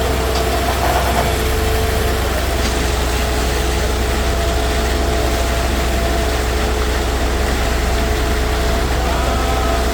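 Concrete mixer's engine running steadily: a constant low hum with a steady whine over it.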